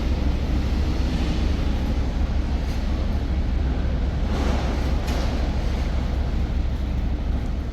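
Wind buffeting the phone's microphone: a steady low rumble with a hiss over it.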